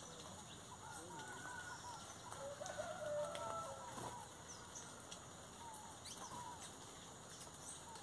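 Chorus of small birds chirping and whistling, with a louder, lower call about three seconds in.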